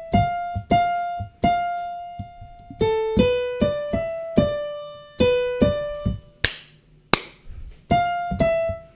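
Electronic keyboard with a piano sound playing a slow single-note melody, one key at a time, each note fading before the next; this is the tune of the sung line. About two-thirds through, two sharp clicks cut in, less than a second apart.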